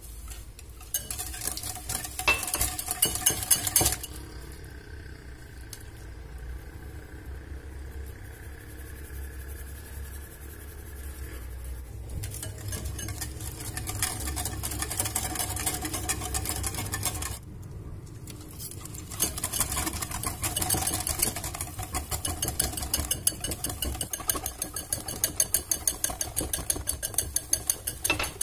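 Wire balloon whisk beating cake batter by hand in a ceramic bowl, the wires rapidly clicking and scraping against the bowl. It comes in spells, with a brief stop about two-thirds of the way through and the fastest beating near the end.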